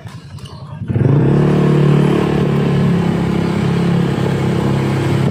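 Honda Click 150 scooter's single-cylinder engine breathing through an MT8 aftermarket exhaust pipe, the throttle opened about a second in. The engine note jumps up sharply and holds a steady, loud pitch as the scooter pulls.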